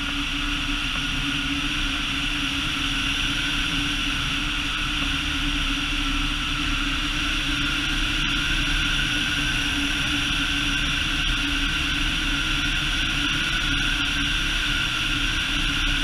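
Steady drone of an aircraft propeller engine at constant speed, with wind rushing past a hang glider in flight.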